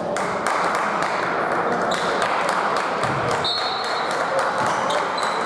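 Basketball game in a gym: a steady crowd murmur with a ball bouncing on the court and a brief high squeak about three and a half seconds in.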